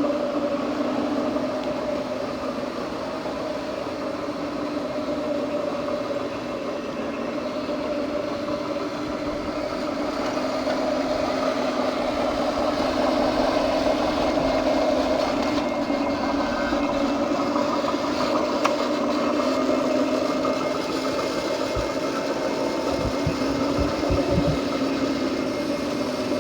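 Small electric motor of an RC construction model running with a steady droning whine that grows a little louder midway. A few dull low thumps near the end.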